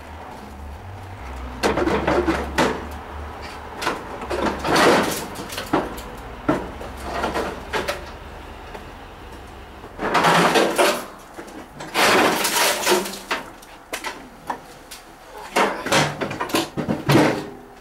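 Metal barbecue grill body being wrenched loose and lifted off its metal stand: irregular bursts of clanking, scraping and rattling sheet metal, loudest about ten and twelve seconds in.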